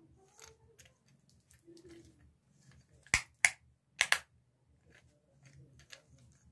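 Rocker switches on a plastic switchboard being flicked: four sharp clicks in two quick pairs about three to four seconds in, amid faint handling of the plastic box.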